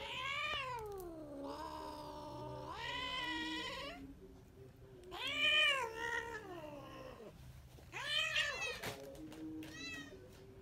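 Cat caterwauling: four long, drawn-out yowls rising and falling in pitch, one held for about two seconds, and a short fifth call near the end. It comes as a tomcat, neutered four days earlier and still behaving as if in heat, pins another cat by the neck.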